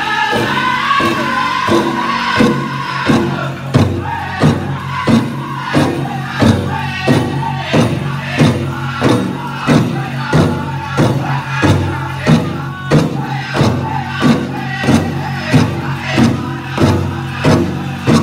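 Powwow drum group playing a contest song for the men's prairie chicken dance: a big drum struck in a steady beat of about one and a half strikes a second under a chorus of male singers. The voices are high near the start, and the drumbeats turn heavier about four seconds in.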